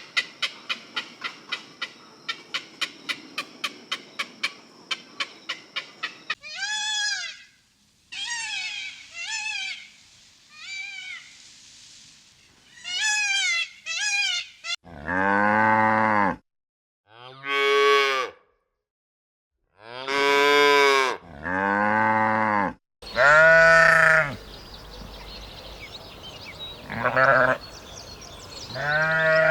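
An even run of clicks, about four a second, for the first six seconds. Then a string of short, high calls that rise and fall. From about the middle on, cattle mooing: several long, low moos, the loudest sounds here.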